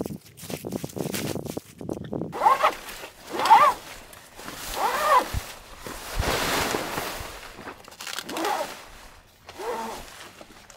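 A zipper being pulled in several short strokes, each a buzzing rasp that rises and falls in pitch, with one longer, noisier pull in the middle.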